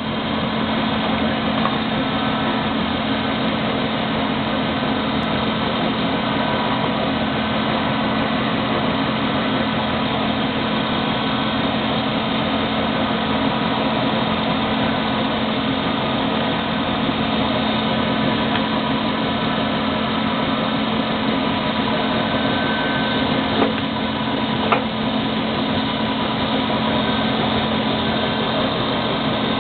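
Servo-controlled twin-spindle special-purpose drilling machine running: a steady mechanical hum and whir. Two brief clicks come about three-quarters of the way through.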